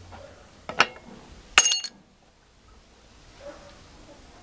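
Thin brass spoon blank clinking against metal: a short knock about a second in, then a louder clink with a bright, high ring a little after one and a half seconds.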